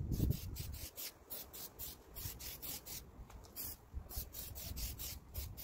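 Aerosol can of clear lacquer spraying onto a headlight lens in short repeated hisses, about three a second, with a brief pause a little past halfway.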